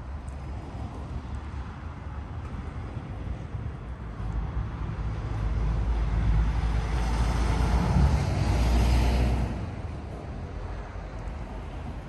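A vehicle passing on a nearby road, building over a few seconds to a peak and falling away sharply about nine and a half seconds in, over a steady rumble of wind on the microphone.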